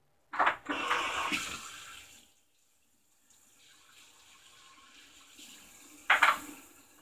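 Kitchen sink tap running, water splashing for about two seconds and then easing off, followed by a fainter run of water. A short, sharp sound comes about six seconds in.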